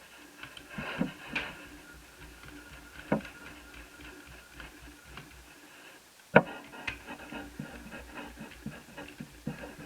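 Small clicks and knocks of a screwdriver and tiny screws as the bottom-case screws of an Asus Eee PC 1001P netbook are undone. A sharper knock comes about six seconds in.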